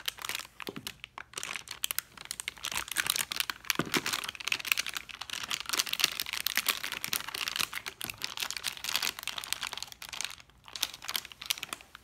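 Foil anti-static bag crinkling as it is handled: a dense, irregular run of crackles, with a short lull about ten seconds in.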